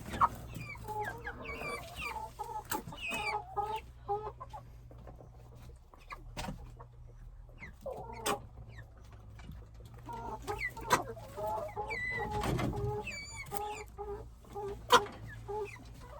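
A flock of broiler chickens clucking and peeping in short repeated calls, with sharp sneezes breaking in every few seconds. The sneezing is the sign of the respiratory illness, a runny nose and cough, that the birds are being treated for.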